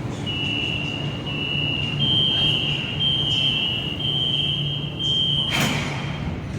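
Train door-closing warning buzzer: a high electronic tone alternating between two close pitches about once a second for about five seconds, ending with a thud as the doors shut. A steady low hum from the train runs underneath.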